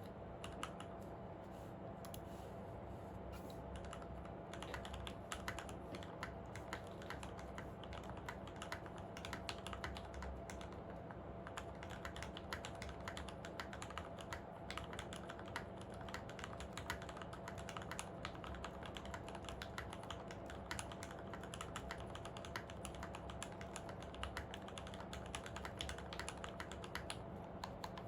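Typing on a Monstargears Ninja87 XO V2 mechanical keyboard with lubed and filmed Retooled Black linear switches, a brass plate and PBT keycaps: a few scattered keystrokes, then steady fast typing from about four seconds in. A faint steady hum sits underneath.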